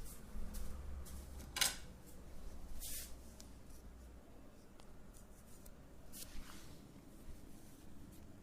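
Close-up hand-massage sounds: a few short swishes of hands rubbing over skin, hair or cloth, with faint scattered taps and clicks in between.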